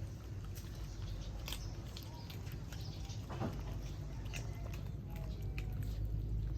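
A dog eating rice, with irregular wet chewing and smacking clicks, over a steady low rumble.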